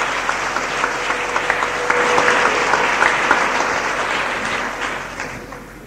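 A congregation applauding, growing louder about two seconds in and dying away near the end.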